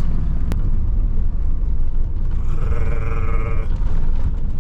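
Strong wind buffeting the microphone: a heavy, uneven low rumble. A short click comes about half a second in, and a brief steady pitched tone lasting about a second comes near the three-second mark.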